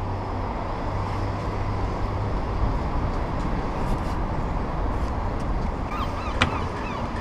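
Steady city road traffic noise with a low engine hum. Near the end come a few short high chirps and one sharp click.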